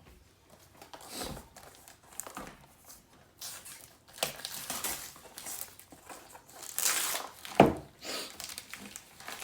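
Paper crinkling and tearing in irregular bursts as a gift is unwrapped, with one sharp knock about three-quarters of the way through.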